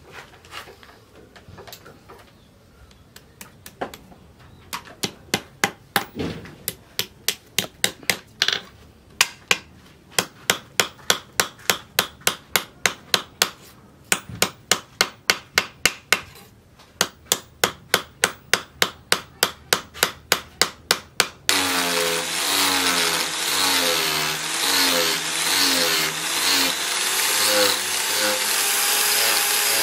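Hammer tapping over and over, about two or three blows a second, peening the metal pins through a knife's wooden handle scales on a steel post anvil. About twenty seconds in it cuts to an angle grinder with a sanding disc running steadily against the wooden handle, its pitch wavering as it bites.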